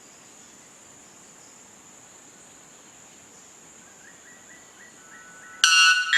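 White bellbird giving one sudden, very loud, ringing note of its mating song near the end, rich in overtones, over a steady high-pitched insect drone. A few faint short notes come just before it.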